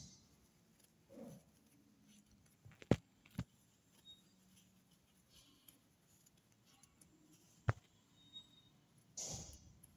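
Faint handling sounds from crocheting wool yarn with a crochet hook: soft rustles and three sharp clicks, two close together about three seconds in and one more a few seconds later.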